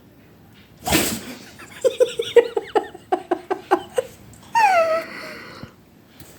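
One loud, forceful sneeze about a second in, followed by a woman's giggling laughter in short rapid bursts, then a brief vocal sound that falls in pitch.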